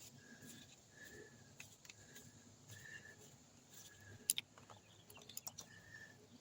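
Faint, short single-note bird call repeating about once a second, with light clicks and one sharper clink about four seconds in from small metal parts being handled.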